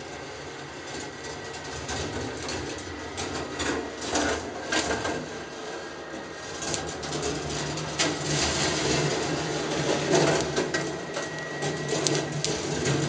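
Marbles rolling along the copper wire tracks of a rolling ball sculpture, with a continual patter of clicks and knocks as they run through switches and bends; the rattling gets busier about halfway through. A steady low hum of the helical lift's motor runs underneath.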